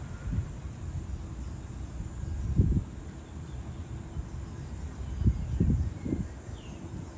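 Gusty wind buffeting the microphone: a low rumble with a strong gust about two and a half seconds in and a cluster of stronger gusts near the end.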